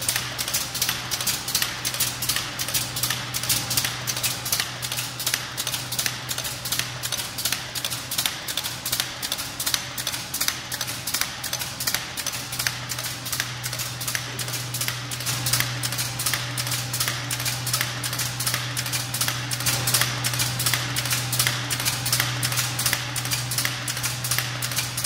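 F/T brad nail forming machine running, clattering in a fast, even run of sharp metallic clicks, several a second. Under the clicks is a steady low hum from the machine's motor, which weakens for a few seconds about a third of the way in.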